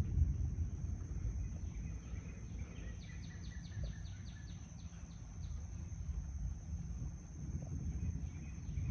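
Thunder rumbling and dying away over the first couple of seconds, leaving a low steady rumble outdoors with a steady high insect buzz. About three seconds in there is a short, fast trill of high ticks.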